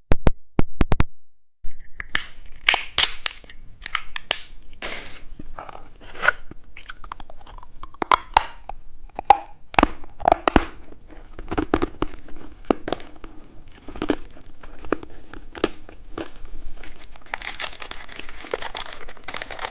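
Close-miked eating of a small hard lollipop, with sharp crunches and crackles as the candy is bitten and chewed. Near the end comes a stretch of steady plastic wrapper crinkling.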